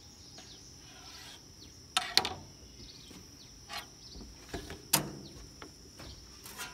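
Insects chirring steadily in the background, broken by several sharp clacks of metal cooking tools being handled and set down at a griddle, the loudest about two seconds in and about five seconds in.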